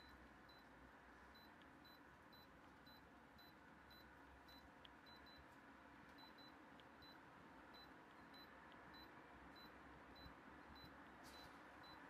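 Faint short high beeps in a steady run, a little under two a second, from a Daikin air conditioner's indoor unit answering the remote as fault codes are stepped through in check mode. Each short beep marks a code that is not the fault; the matching code, L5, is the one that gives a long beep.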